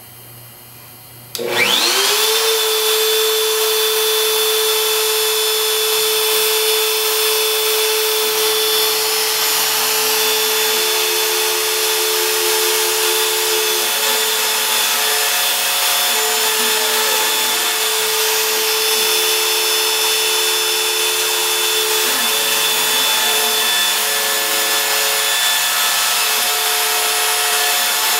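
A CNC router's spindle motor switches on about a second in, rising quickly in pitch to a steady high whine, with broad hiss above. Stepper motors add fainter tones that start, stop and change pitch as the machine's axes move.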